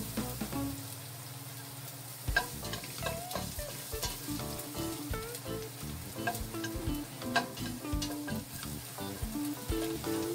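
Chopped garlic sizzling in hot oil in a stainless steel stockpot, with repeated sharp clicks and scrapes of a utensil stirring it against the pot.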